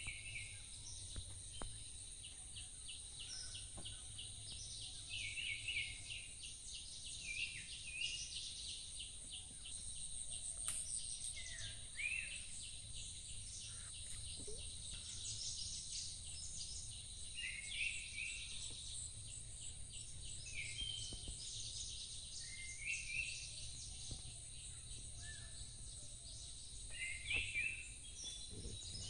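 Lakeside insects and birds: a steady high-pitched insect drone, with birds giving short calls every second or two over a low steady rumble.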